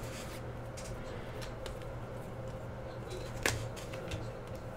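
Glossy chrome trading cards being flipped and slid against one another in the hands, with soft clicks of card stock and one sharper snap about three and a half seconds in. A steady low hum runs underneath.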